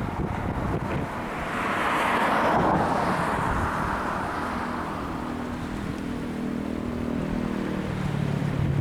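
A road vehicle passing by, its noise swelling and fading about two to four seconds in, over wind rumbling on the microphone. Near the end a low, steady engine hum comes in.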